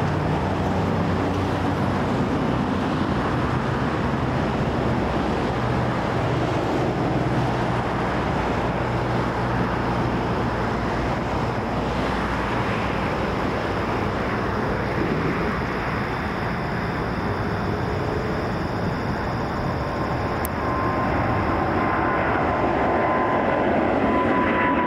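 Boeing 777-300ER's twin GE90-115B turbofan engines at takeoff power: a steady jet roar. A faint whine comes in about twenty seconds in, and the roar grows louder near the end.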